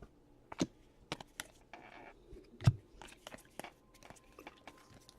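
Trading cards and a foil pack wrapper being handled: scattered crisp clicks, light crinkling and small taps. The loudest is a tap about two and a half seconds in.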